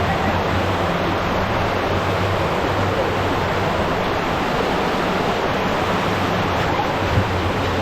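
Running spring water rushing steadily, an even loud hiss with no pauses.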